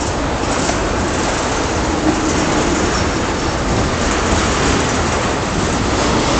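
Freight train of ethanol tank cars rolling steadily past: a continuous noise of steel wheels running on the rails, with no distinct rhythm of joints.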